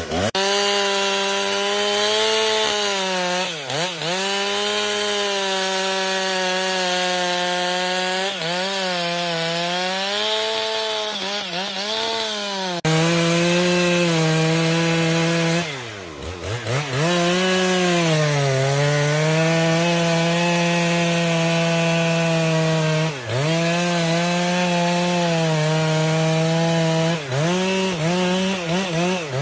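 Chainsaw running at high revs while cutting into wood, its engine pitch dipping and recovering several times as the chain bogs down under load in the cut.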